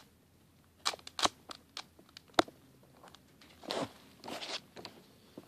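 A 4x4x4 Rubik's cube being turned by hand: a few sharp plastic clicks in the first half, then a couple of longer scraping turns of its layers.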